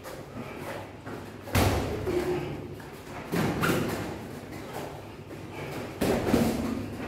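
Padded boxing gloves landing punches during sparring: three heavy thuds, about a second and a half in, midway through, and near the end, with a short ring of room echo after each.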